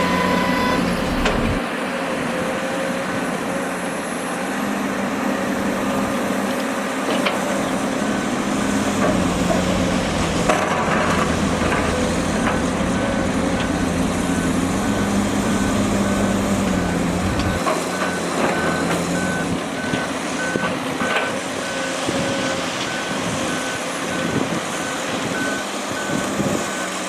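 Heavy diesel construction machinery running steadily, with a reversing alarm beeping in a long, even series from about a third of the way in until near the end. A few short knocks sound over the engine noise.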